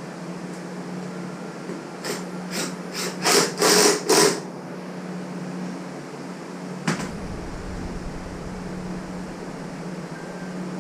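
A steady mechanical hum like a workshop fan. About two seconds in, six short hissing bursts come in quick succession, each longer and louder than the last. A single sharp knock follows near seven seconds.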